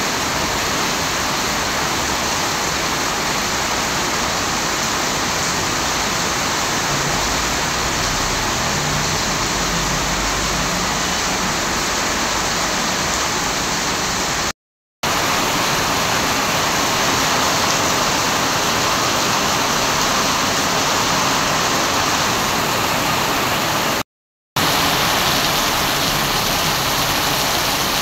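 Heavy rain pouring down onto wet paving and puddles: a steady, even hiss of downpour. It cuts out to silence twice for a moment, about halfway and about three-quarters of the way through.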